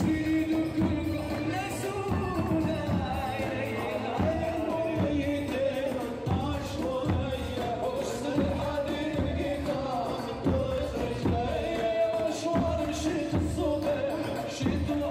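Palestinian dabke music: a steady beat of tabl drums under a wavering sung or piped melody, with no break.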